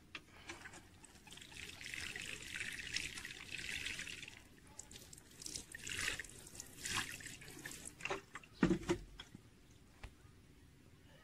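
Water sprinkling from a watering can's rose onto the soil of a small potted cutting and splashing on concrete for a few seconds. It is followed by scattered splashes and drips and a dull knock near the end.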